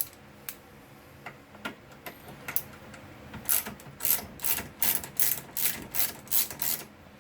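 Hand ratchet driving a long-reach T30 Torx bit, clicking in short strokes about two or three a second from about three seconds in, backing out a carburetor mounting bolt. A few scattered metal clicks come before it as the bit is set in place.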